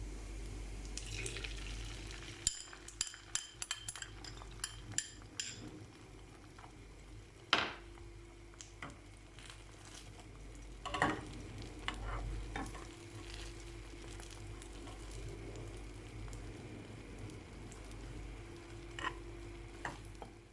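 Cooking sounds: a metal utensil clinking against a pot in quick strokes for a few seconds, then a few single knocks of cookware, over a faint steady sizzle of food frying.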